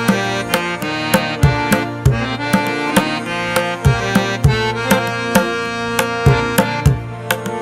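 Background music: a hand-drum rhythm over sustained melodic tones.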